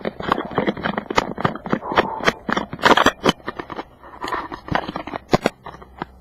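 Handling noise on the camera's microphone: a dense run of irregular sharp knocks, scrapes and rustles as the camera is rubbed and jostled against fabric and other surfaces.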